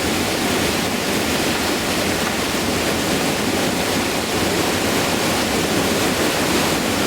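Rushing whitewater of the Gauley River's Class V rapid: a steady, loud, even roar of tumbling water with no break.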